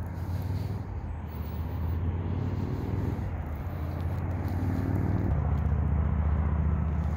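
Road traffic from the highway below, with a low rumble throughout. A vehicle engine climbs in pitch as it accelerates, then holds steady for the last couple of seconds.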